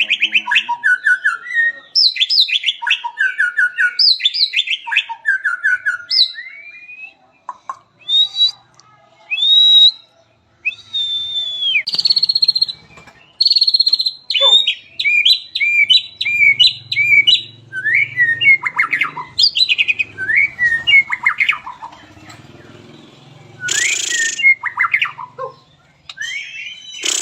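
White-rumped shama (murai batu) singing a varied song: fast runs of repeated chipping notes, clear whistles and short pauses between phrases.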